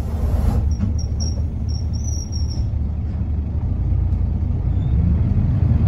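Isuzu U-LV large city bus under way, heard from inside the passenger cabin as a steady low engine and road rumble that grows a little louder near the end. A few short high squeaks come between about one and two and a half seconds in.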